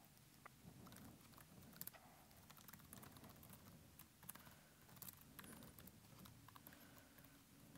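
Faint computer keyboard typing: scattered, irregular keystroke clicks over a low background hum.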